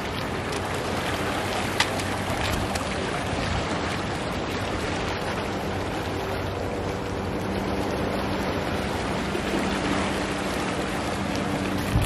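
River water rushing over riffles below a footbridge: a steady rushing noise. A faint low hum comes in during the second half.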